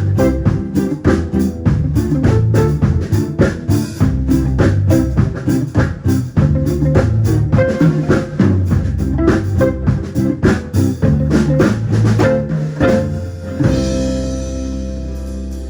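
Band music with drum kit and guitar, the drums hitting a steady fast beat, then a final chord held and ringing out about 14 seconds in.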